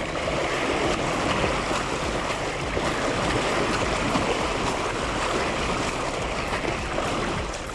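Fat bike wheels splashing and churning through a shallow river: a steady rush of water spray that eases off near the end.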